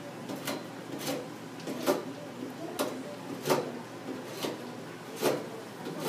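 Felt-tip marker writing on paper over a hard table: short scratchy strokes, about one a second.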